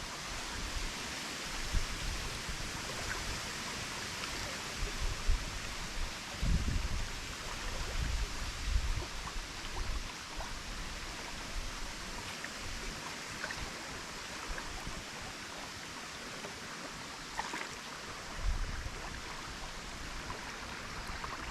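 River water flowing steadily, with wind gusting on the microphone now and then, most around the middle.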